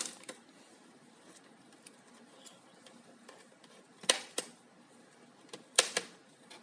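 Sharp clicks and knocks from the plastic casing of a Dell Inspiron 14 5000 laptop being pried and handled: one at the very start, a quick pair about four seconds in, another pair near six seconds, with faint small ticks between.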